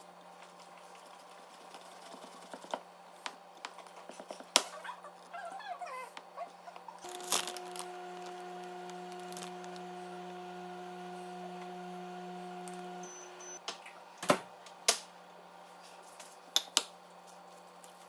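Scattered clicks and knocks, with a steady electric appliance hum that starts about seven seconds in and cuts off about six seconds later.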